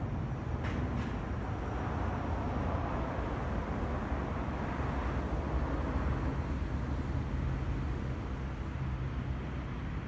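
Street traffic: a steady low rumble, with a passing vehicle swelling and fading in the middle. Two faint ticks come near the start.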